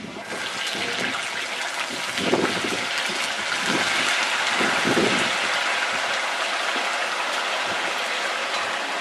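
Raw potato strips sizzling and bubbling hard in the hot oil of a stainless-steel fryer: a steady, dense hiss. A few lower splashes come about two to five seconds in as the basket of potatoes is tipped into the oil.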